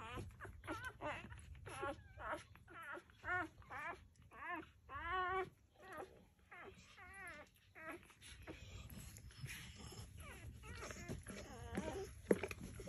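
Newborn blue nose pit bull puppies squeaking and whimpering: a quick string of short, high, wavering cries that thins out after about eight seconds.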